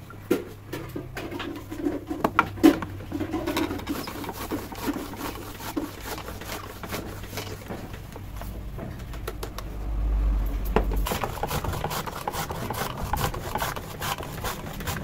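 A dove cooing, low repeated coos in the first half, over scattered sharp clicks and knocks, with a low rumble in the second half.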